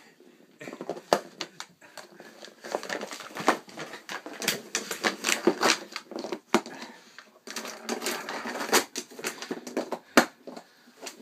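A dog nosing and pawing at a plastic circular-track cat toy with a cardboard scratch pad: irregular rapid clicking and clattering of the plastic, with scratching on the cardboard.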